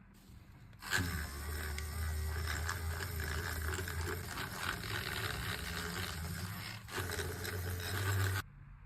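A small electric tool motor running steadily, with a low hum and airy hiss. It switches on about a second in, drops out briefly near seven seconds, and cuts off sharply near the end.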